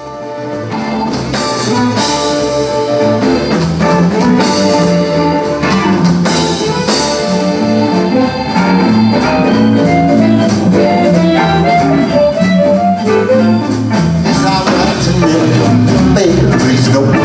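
Blues band playing live: amplified harmonica over electric guitar, organ and drums. The music fades in over the first couple of seconds, then holds steady.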